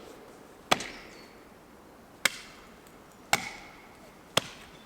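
Axe chopping into a spruce trunk: four sharp strikes, roughly a second apart, with a brief ring after some of them. The chopping is to free a hung-up tree.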